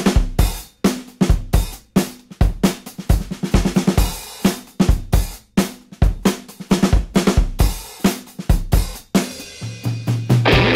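Background music: a steady drum-kit beat with kick, snare, hi-hat and cymbals.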